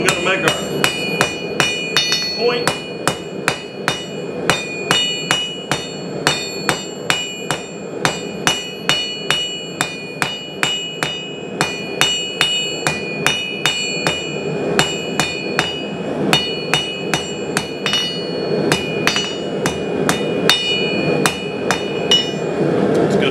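Hand hammer striking hot steel on an anvil, drawing the awl end of a forged awl/chisel out to a point. Blows come at a steady rhythm of about two to three a second, each with a ringing tone from the anvil.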